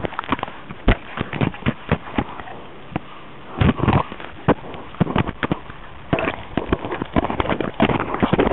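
A dog's teeth and jaws mouthing a micro camera right against its microphone: irregular sharp clicks, knocks and crackles in quick clusters.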